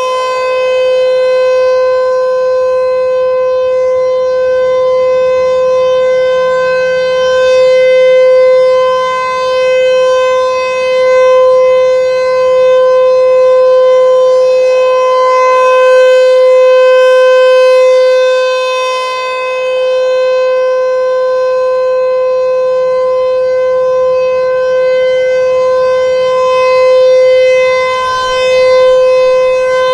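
ASC T-128 electronic outdoor warning siren sounding the Alert signal: one loud, steady-pitched tone with a rich stack of overtones. The tone grows louder and softer every few seconds as the siren's head rotates.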